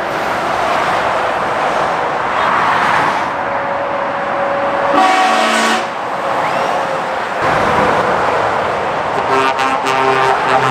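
Lorries passing at motorway speed with steady tyre and engine noise. A horn sounds once for about a second around the middle, and a few short horn toots follow near the end.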